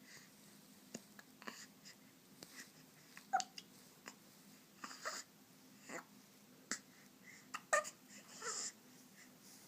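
A five-and-a-half-week-old baby hiccuping repeatedly, about once a second. Each hiccup is a short, sudden catch of breath, and a few carry a small squeak of voice.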